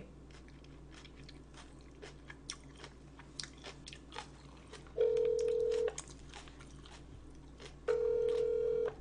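Phone ringback tone heard through the speakerphone of an outgoing call: a steady tone about a second long, twice, about three seconds apart, starting about five seconds in. Before it, faint scattered clicks and taps.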